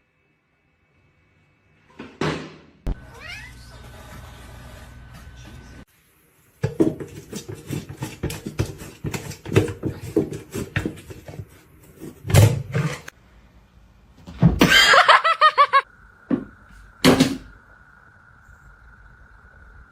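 A domestic cat meowing loudly in a drawn-out call about 15 seconds in, amid short knocks and clattering from several spliced clips.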